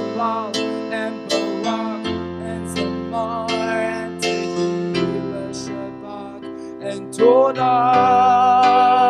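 Worship band music at the close of a song: keyboard chords with guitar, and from about seven seconds in a voice holds one long wavering note.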